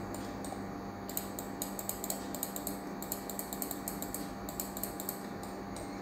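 Computer mouse buttons clicking in quick, uneven runs of light clicks, often in close pairs, as the eraser is applied in short strokes. A steady low electrical hum runs underneath.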